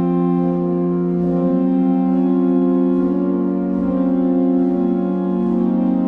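Background music of slow, sustained chords, each held for several seconds.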